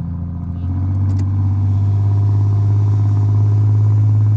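Jeep engine running with a steady low drone that grows a little louder about a second in.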